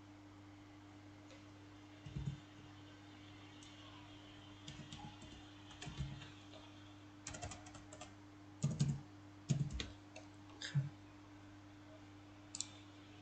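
Typing on a computer keyboard in irregular short bursts of keystrokes, some louder than others, over a faint steady electrical hum.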